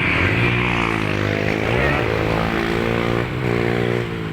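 Road traffic passing close by: the engines of passing motorcycles and cars, their pitch rising and falling as they go by.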